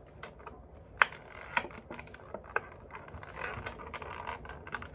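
Clear plastic Funko Pop packaging insert being handled and flexed, crinkling and rustling with scattered sharp clicks, the loudest about a second in.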